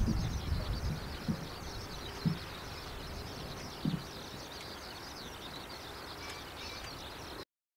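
Outdoor ambience of small birds chirping continuously and high-pitched, over a low rumble of wind on the microphone that dies away in the first second, with three brief low thumps. The sound cuts off suddenly near the end.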